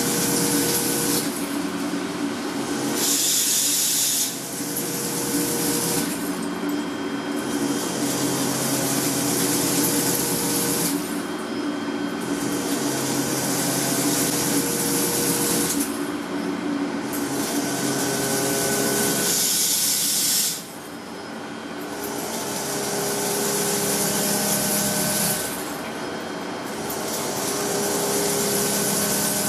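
Gear-factory machinery running with a steady, multi-toned hum, and a loud hiss that cuts in for a few seconds and drops out for about a second, again and again.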